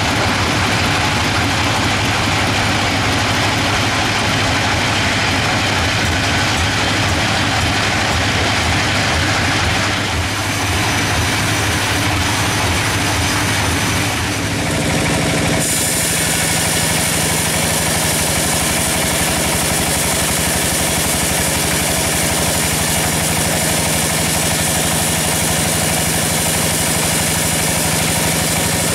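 Log band sawmill running steadily: a constant machine hum with held tones and a high whine. The pitch and mix change abruptly about halfway through.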